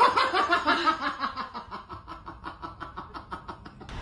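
A person laughing hard in a fast run of ha-ha bursts, about six a second, loudest at the start and trailing off before cutting off near the end. A steady background rumble comes in as it stops.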